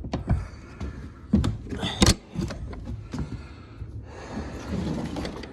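A door being handled: a few knocks and clunks with one sharp bang about two seconds in, then a scraping sound for the last second and a half as it is moved.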